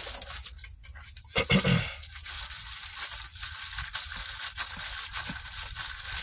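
A plastic bag wrapped around a car's oil filter crinkling and crackling as the filter is turned and unscrewed by hand.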